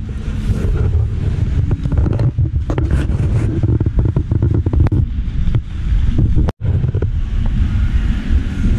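Loud low rumble of microphone handling and wind noise from a handheld camera being carried along, with scattered clicks. The sound cuts out for an instant past the middle.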